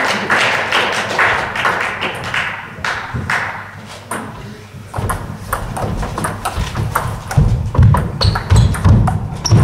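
Table tennis rally: the ball clicks in quick succession off bats and table from about halfway in, with heavy footfalls thumping on the wooden hall floor as the players move and lunge. Before the rally, a stretch of crowd noise in the hall dies away.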